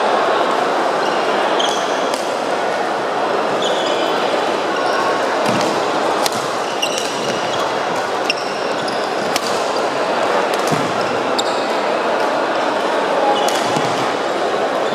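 Badminton rackets striking the shuttlecock in sharp scattered smacks, with sneakers squeaking on the wooden court floor, over the steady hubbub of voices and play in a large, echoing sports hall.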